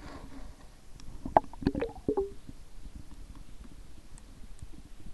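Water and handling sounds heard through a camera held underwater: a quick cluster of knocks and gurgles about a second and a half in, then a low, even wash.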